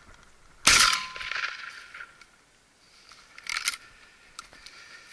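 A single shotgun shot about two-thirds of a second in, from an SKB 505 over-and-under shotgun fired at a thrush in flight, tailing off over about a second. A fainter sharp crack follows about three seconds later.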